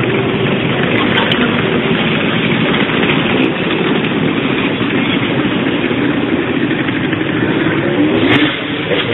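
Motorcycle engine running with a loud, steady noise, rising briefly in pitch about eight seconds in.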